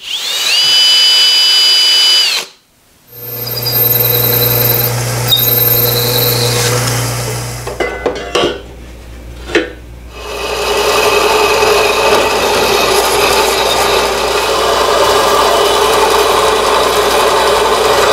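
Small metal-cutting band saw running and cutting a piece of aluminium plate, a steady rasping cut for the last several seconds. Before the cut there is a short high motor whine at the start, then a low motor hum and a few knocks.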